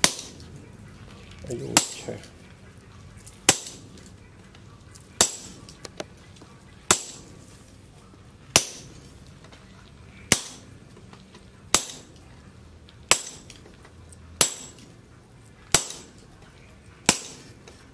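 Sledgehammer blows on a handled top tool held against red-hot leaf-spring steel on a steel post anvil, about a dozen evenly spaced strikes, one every second and a half or so. Each is a sharp metallic clang with a short ring.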